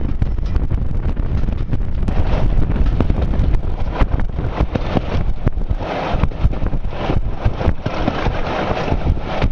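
British Rail Class 37 diesel locomotive hauling a passenger train, its English Electric V12 engine running under load, with wind buffeting the microphone.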